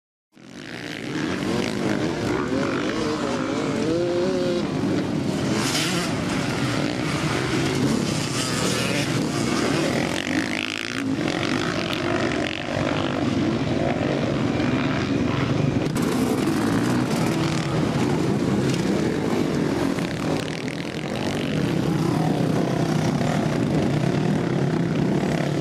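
Several motocross dirt bike engines running and revving up and down as the bikes race past on a dirt track, cutting in abruptly at the start.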